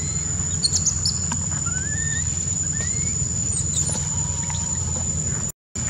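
Newborn long-tailed macaque squealing: a few short, thin squeals that rise in pitch, in distress, over a steady high-pitched whine.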